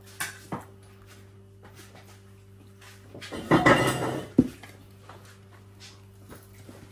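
Glasses and dishes handled on a dining table. A couple of light clicks come first, then a louder clatter and rustle close by about three and a half seconds in, ending in a sharp knock, over a steady low hum.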